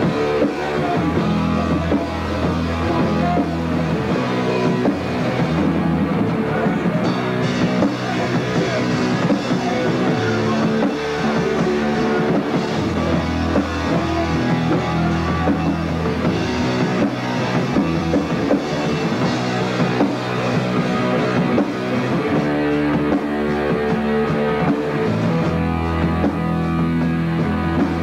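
Punk rock band playing live: electric guitar, bass and drum kit, loud and steady, with the low bass notes changing every few seconds.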